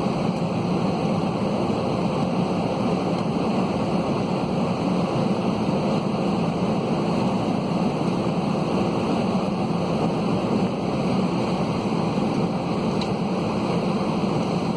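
Steady airliner cabin noise in flight inside an Airbus A320-211: rushing airflow over the fuselage and the drone of its CFM56 engines, with a faint hum of steady tones underneath.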